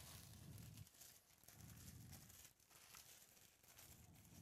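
Empty foil Panini Optic card pack wrappers gathered up and crumpled in a hand: a faint, uneven crinkling and rustling.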